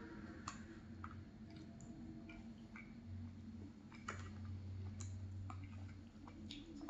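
Quiet eating of an ice cream dessert with a spoon: faint, scattered soft clicks and ticks at an irregular pace.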